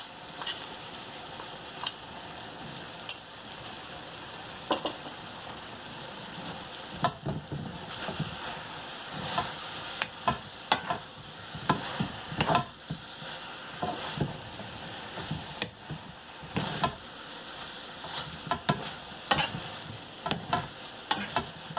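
Vegetables sizzling in a stainless steel pan while a spatula stirs them, with irregular scrapes and knocks of the spatula against the pan. The knocks come more often from about seven seconds in.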